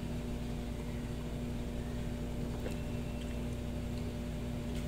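Steady electrical-mechanical hum of room tone, one held tone over a low rumble, with two faint clicks, one partway through and one near the end.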